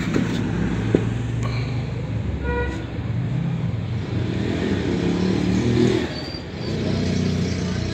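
Motor traffic going by: a steady rumble of vehicle engines whose pitch wavers up and down, with a brief beep about two and a half seconds in.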